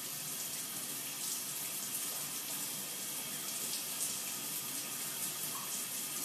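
Steady hiss of running water, like a tap or shower running, heard in a small tiled room.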